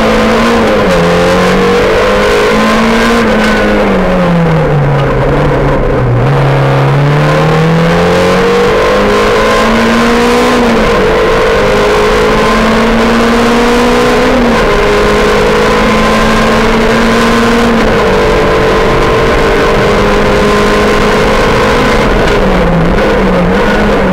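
Rally car's engine heard loud from inside the cabin on a stage run. The revs sink over the first few seconds, then climb slowly under throttle, dropping sharply at gear changes about ten and fourteen seconds in. Near the end they bob up and down quickly several times.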